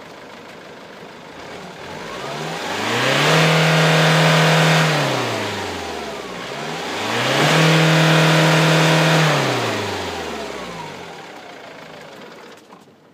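Ford Mondeo TDCi diesel engine, fitted with water injection, heard at the tailpipe being revved twice from idle: each time the pitch climbs, holds for about a second and a half, and falls back to idle.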